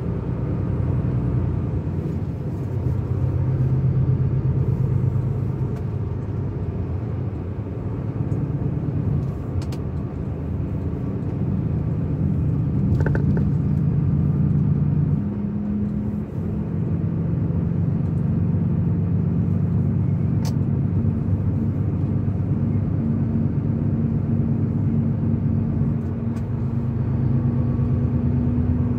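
A car's engine and road noise heard from inside the cabin while driving: a steady low hum whose engine note steps higher about halfway through, with a brief dip in loudness just after.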